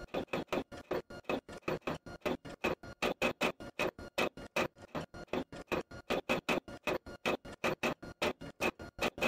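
Rapid, even ticking, about six or seven sharp ticks a second, with faint steady tones behind it.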